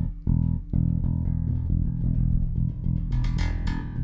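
Ibanez five-string active electric bass plucked with the fingers: held low notes, then a quicker run of notes near the end with sharp, clicky attacks. The clicking is the strings buzzing against the frets, which the owner puts down to the strings sitting too low on the neck.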